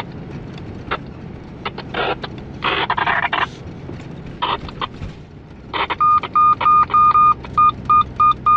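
Two-way radio crackling in short bursts of static, then giving a quick run of short electronic beeps, about three a second with one held a little longer. It sits over a steady vehicle engine and road hum.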